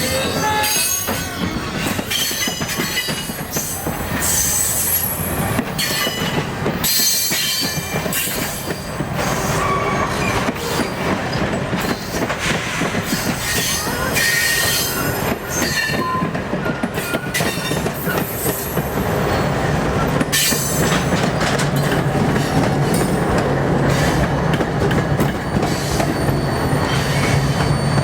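Canadian Pacific Holiday Train cars rolling along the track, wheels squealing on the rails with a clickety-clack over the joints. A low steady drone comes in about two-thirds of the way through.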